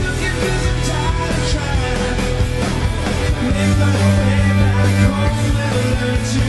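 Loud rock music with a singing voice, an NHL team's goal song.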